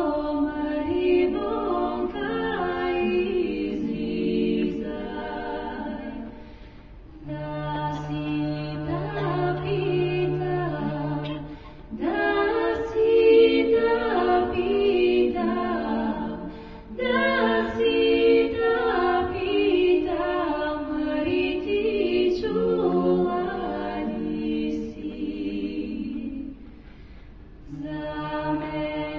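Unaccompanied choir singing in long held phrases, with a low drone note sustained beneath some of them.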